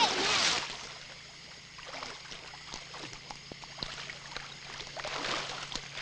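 Water splashing in a shallow creek: a loud splash at the start, then quieter sloshing and dripping, with more splashing near the end.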